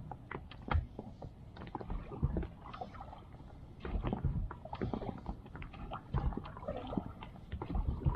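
Irregular knocks, bumps and low thuds on an inflatable PVC boat (Inzer NDND 350) on the water, as it is handled and climbed about in.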